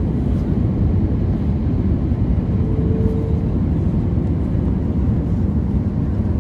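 Jet airliner cabin noise in flight: a steady low roar of engines and rushing air, heard from inside the cabin. A faint brief tone sounds about three seconds in.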